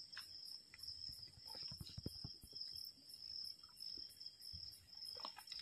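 Faint, steady high-pitched chirring of crickets at night, with a few soft low knocks about two seconds in.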